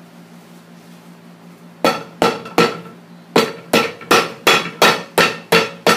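Hammer striking the upturned sole of a leather shoe held on a shoe last. Three sharp blows come about two seconds in, then after a short pause a steady run of blows, a little under three a second.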